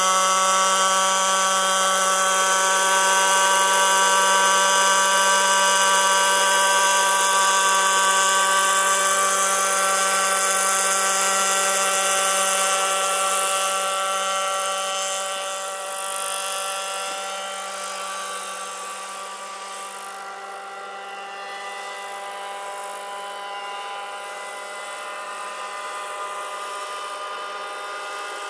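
Combustion engine and rotors of a radio-controlled scale model Sikorsky HO3S-1G helicopter running at a steady pitch in flight. The sound grows much fainter about halfway through as the model flies away, then holds at the lower level.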